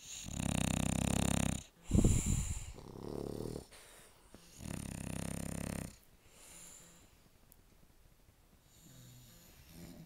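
Sleeping bulldog snoring: four loud snores in the first six seconds, each lasting about a second, the second one the loudest. After that it goes quieter, with only faint breathing.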